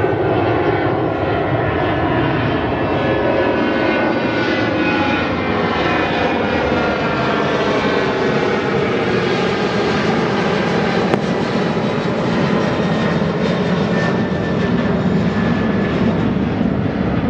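Boeing 737-800's CFM56-7B turbofan engines at takeoff thrust: a steady jet roar as the airliner lifts off and climbs away.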